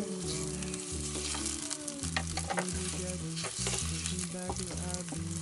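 Sliced red onions sizzling in oil in a nonstick skillet as they sauté, stirred with a wooden spatula that scrapes and taps against the pan. Underneath runs a low tone that changes pitch in steps.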